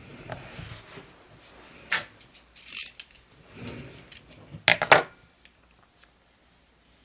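Paper and stationery being handled on a desk: soft rustling broken by a few sharp clicks and scrapes, the loudest cluster about five seconds in.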